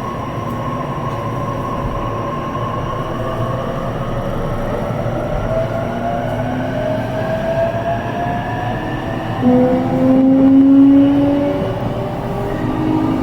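E233 series electric train pulling away, its traction motors' whine climbing steadily in pitch over the rail running noise as it gathers speed. A louder, still-rising tone comes in about nine and a half seconds in.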